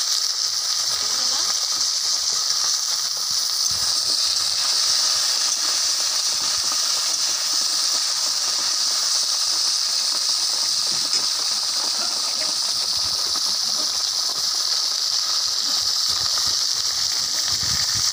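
Chopped green mango pieces sizzling steadily in hot mustard oil in a kadai, an even hiss of frying.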